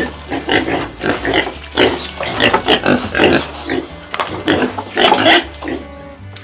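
Domestic pig grunting in a rapid run of short calls that stops near the end.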